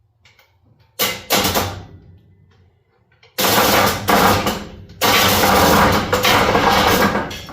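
Chevy C10 V8 turned over by its starter motor, jumped across the terminals with a screwdriver: two brief bumps about a second in, then two longer bouts of cranking. The engine turns but does not fire, as the ignition is not yet working.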